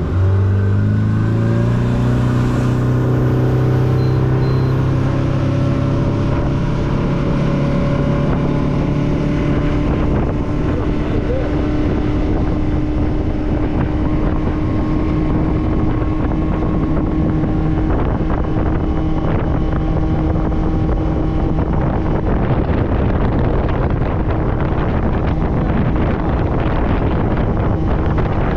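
Boat's outboard motor throttling up from idle, its pitch climbing over the first several seconds as the boat gets up to speed, then running steadily at cruising speed. Wind noise on the microphone builds in the second half.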